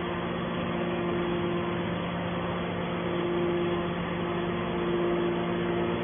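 Steady hum of a hydraulic metal baler's power unit, its electric motor and hydraulic pump running, with a low tone under a higher one that swells and fades every second or two.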